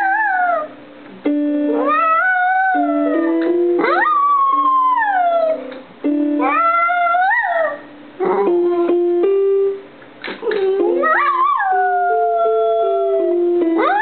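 A dog howling along to piano music in a series of long howls, each rising sharply and then sliding down in pitch. There is a short break near the middle where only the piano notes sound.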